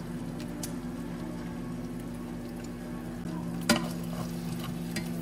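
Two eggs sizzling in a frying pan over a steady low hum, with a metal spatula knocking against the pan about three and a half seconds in.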